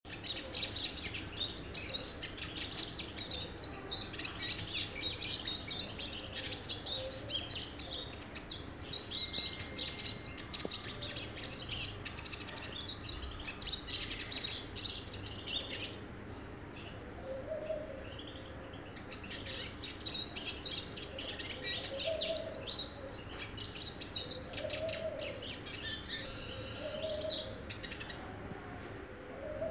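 Caged Eurasian siskin singing: fast, high twittering phrases strung together, pausing briefly just past the halfway point before starting up again.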